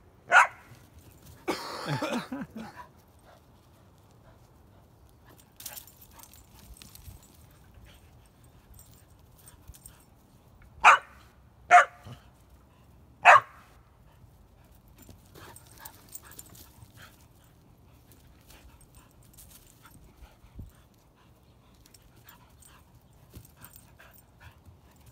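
A dog giving short, sharp play barks to get a goat to chase it: one bark right at the start, a longer rough call about two seconds in, then three quick barks about eleven to thirteen seconds in.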